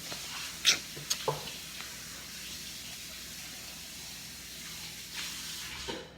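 Water running steadily from a tap, with a few light knocks in the first second and a half; the flow shuts off just before the end.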